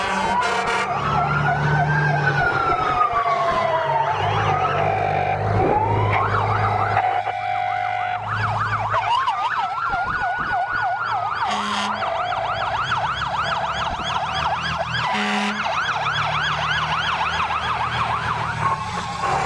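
Several emergency-vehicle sirens sounding at once from passing fire trucks and an ambulance: slow wails rising and falling over a couple of seconds, overlapped by fast yelping warbles, over the low rumble of truck engines. Two short horn blasts cut in, about twelve and fifteen seconds in.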